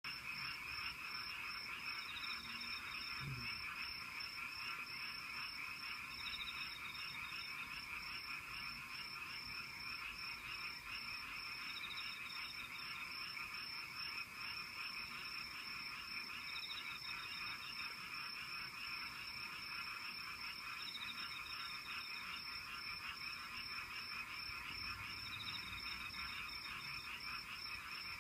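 Frog chorus sound effect: many frogs calling at once in a dense, steady trill, with a short higher call repeating about every four to five seconds.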